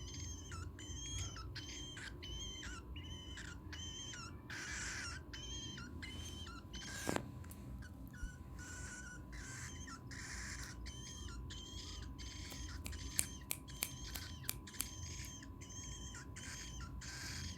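Cockatiel feeding, giving a steady run of short, high chirps about two a second, with a few sharp clicks in between.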